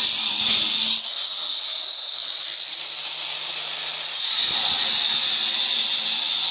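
Handheld electric stone cutter with a diamond blade cutting a granite slab wet: a steady high whine with a hiss. It gets quieter about a second in and comes back loud after about three more seconds.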